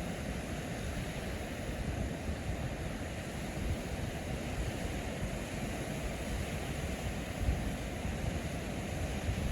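Steady rushing outdoor noise, with a few short low gusts of wind buffeting the microphone.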